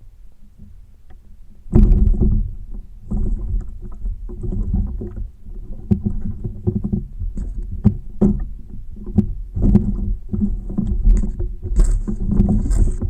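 Irregular thumping and knocking against a plastic kayak hull, starting suddenly about two seconds in and going on in a rough, uneven run of low bumps, as something heavy shifts and knocks about in the kayak.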